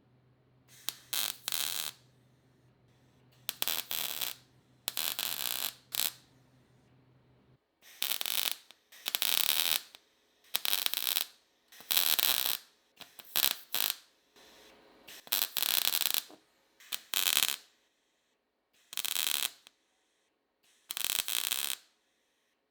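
MIG welder laying a run of short stitch or tack welds on car body panel steel: about a dozen harsh crackling bursts, each up to a second or so long, with brief pauses between.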